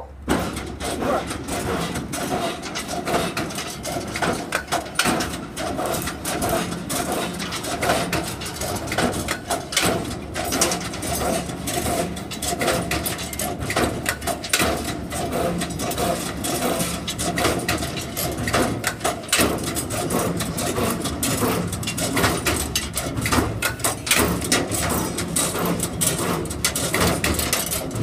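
CNC rebar stirrup bending machine starting up abruptly and running, feeding steel wire through its straightening rollers and bending it into square stirrups: a steady mechanical clatter with rapid clicks and knocks.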